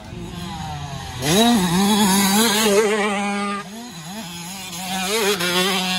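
Small two-stroke youth motocross bike accelerating hard. About a second in, the engine revs up sharply and gets much louder, holding a high steady pitch. Past the middle it drops away and comes back in a few short rises and falls as the rider works the throttle and gears, then holds high again.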